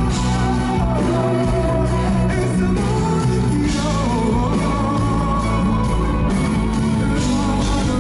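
Live band performance: a male lead singer singing into a microphone over electric guitar and drums, loud and continuous.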